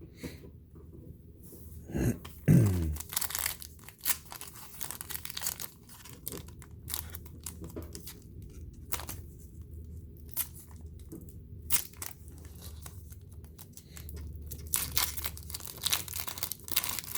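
Trading-card pack wrapper being torn open and crinkled, in bursts of crackling, with a knock about two seconds in.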